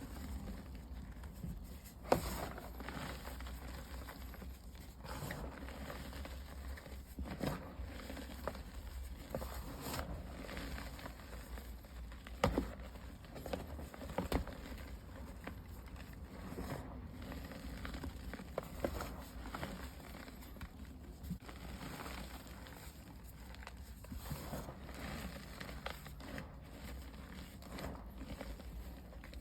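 Pink gym chalk balls being crumbled, a soft, steady crackling and pattering of chalk and powder, with a few sharper cracks about two seconds in and about twelve seconds in.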